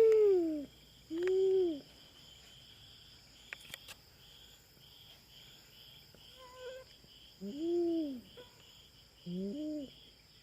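Cat yowling: a long, loud yowl falls away in the first second and is followed by a short arched yowl. After a pause of several seconds come two more short rising-and-falling yowls near the end. Insects chirp steadily in the background with an even pulsing chirp.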